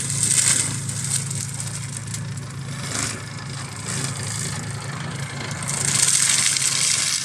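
Forestry mulcher on a Fendt tractor shredding standing saplings and brush: the tractor engine drones steadily under the hiss and crackle of the rotor's teeth chewing wood. The shredding grows louder about half a second in and again over the last second or so.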